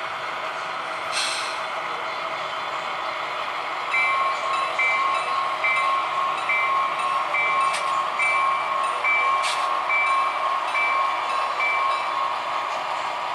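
HO scale model diesel locomotives passing under sound-decoder power: a steady running noise with a bell ringing evenly, a little more than once a second, from about four seconds in until near the end, and a few sharp clicks.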